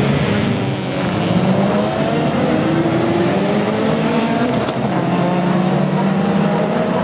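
A field of sports saloon race cars accelerating hard, several engines running together, their pitches climbing again and again as they change up through the gears.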